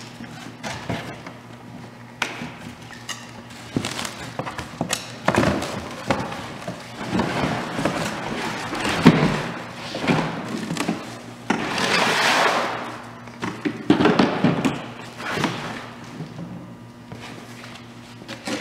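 Cardboard box and packing inserts being handled and pulled apart: rough scraping and rustling swells with many knocks and thuds as an electric snowblower is lifted out of its carton and set down on a concrete floor.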